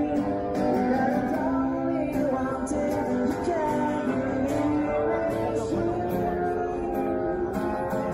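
A song playing, with a singer and guitar.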